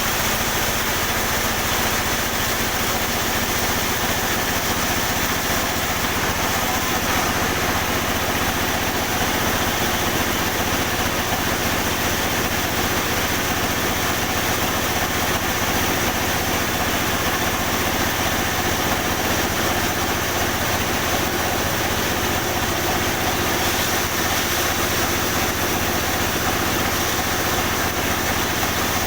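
Sawmill machinery running steadily: an engine-driven saw humming without a break under a constant hiss.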